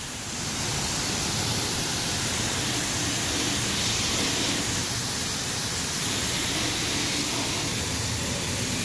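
Car-wash wand spraying water at low pressure onto a car's engine bay, rinsing off degreaser: a steady rush of spray.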